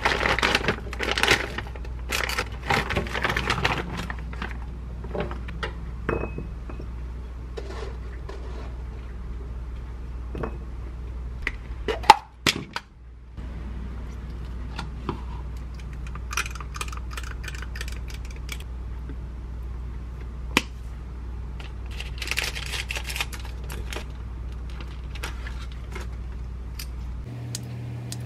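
Kitchen prep noises: frozen blueberries rattling into a stainless mesh strainer in a cluster of clicks over the first few seconds, then scattered clicks and knocks, the loudest about halfway through, and a spoon scooping Greek yogurt out of a plastic tub. A low steady hum runs underneath.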